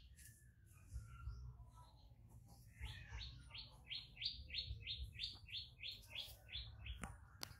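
A bird chirping a quick, even series of about fourteen short high notes, three or four a second, lasting about four seconds, with fainter calls before it. Two sharp clicks come near the end.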